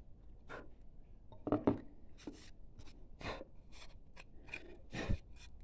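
Wood chisel pushed by hand, paring and scraping at a carved letter in a wooden board: a series of short, irregular scrapes and cuts, the loudest about a second and a half in.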